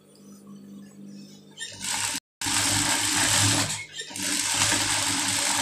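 Industrial sewing machine stitching fabric in runs: it starts about two seconds in, stops briefly just before the middle of the run, then sews on steadily.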